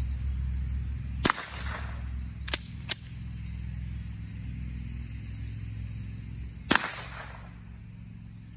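Two shots from a J.C. Higgins Model 33 .22 rifle firing .22 shot shells, about five and a half seconds apart, each a sharp crack with a short echo. Two quick sharp clicks come between them.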